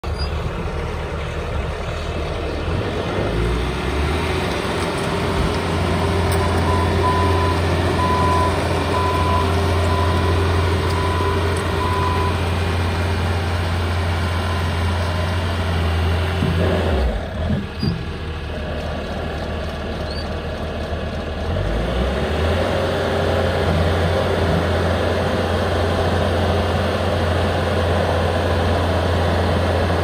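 The diesel engine of a Bobcat T650 compact track loader runs steadily. It picks up in speed a few seconds in, drops briefly a little past halfway, then picks up again. For several seconds early on, a warning beeper sounds about once a second over the engine.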